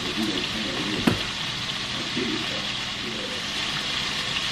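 Salisbury steak patties sizzling steadily in a cast-iron skillet, with a single sharp knock about a second in.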